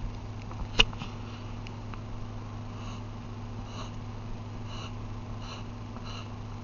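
Pencil on paper, scratching out short drawn strokes, several quick scratches about once a second, over a steady electrical hum. A sharp tap about a second in.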